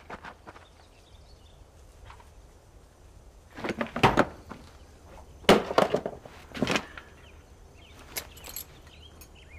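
Several short knocks and thumps at uneven intervals, the loudest and deepest about four seconds in, with lighter clicks near the end.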